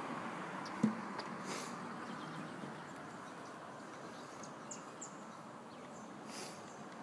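Steady outdoor background hiss, with one sharp knock about a second in as the acoustic guitar is swung into position, and a few faint high chirps later on.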